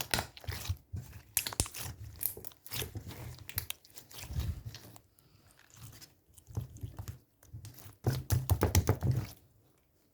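Close-miked crunchy biting and chewing: irregular crisp crunches with low mouth thumps. It falls quiet near the end.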